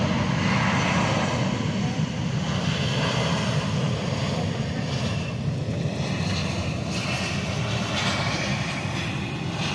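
Airbus A320-232's IAE V2500 jet engines giving a steady rumble as the airliner rolls along the runway after landing, mixed with wind on the microphone. It eases slightly near the end.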